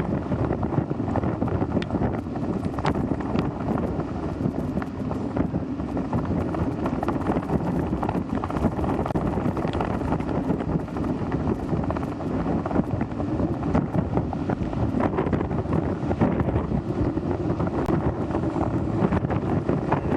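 Hurricane-force wind blowing hard across an outdoor microphone: a dense, unbroken rush with many small crackles and knocks from the buffeting.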